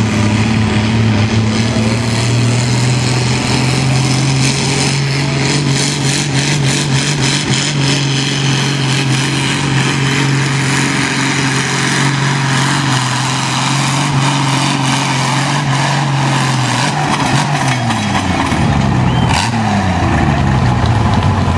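Antique pulling tractor's engine running hard at steady revs under load as it drags the weight sled. About seventeen seconds in the revs drop away and the engine pitch slides up and down as the pull ends.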